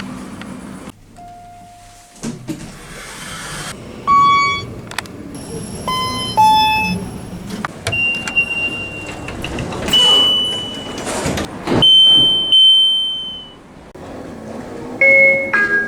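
A run of elevator chimes and electronic beeps from several different lifts, cut one after another: short chime notes, then three longer single high beeps each lasting about a second, over lift-car and door machinery noise.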